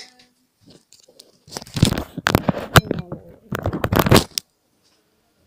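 Handling noise: the camera's microphone rubbing and knocking against clothing, two loud stretches of rustling and scraping about a second and a half in and again near four seconds.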